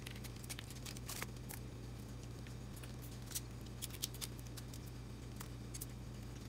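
Kitchen shears snipping and hands cracking and peeling boiled seafood shells: scattered small clicks and crackles, a cluster about a second in and more around the middle, over a steady low hum.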